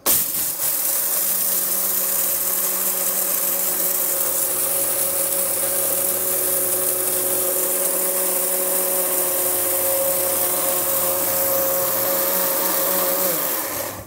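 Electric kitchen mixer grinder running at a steady high speed with a constant whine, grinding dry whole pepper to powder in its steel jar. It starts abruptly and winds down and stops about half a second before the end.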